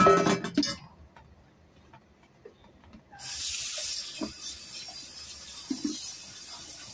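A short clatter at the start, then about three seconds in a kitchen tap is turned on and runs steadily onto cut radish pieces in a plastic colander in a stainless steel sink, with a few soft knocks as a hand stirs the pieces to rinse them.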